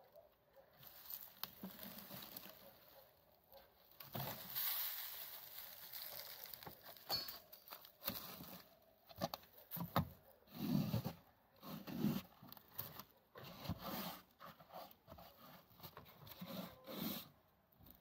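Dry rustling and scraping, with several dull wooden knocks in the second half, as gloved hands work through an abandoned wooden beehive box and lift out its old frames and dried nest debris.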